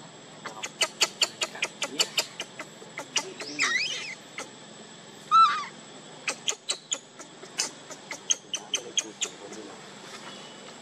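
A baby monkey gives two short, wavering cries, the second and louder one about five seconds in, among runs of sharp, rapid clicks.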